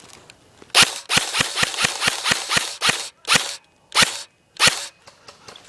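Airsoft gun firing close by: a quick string of about nine sharp pops in two seconds, then three single shots spaced well apart.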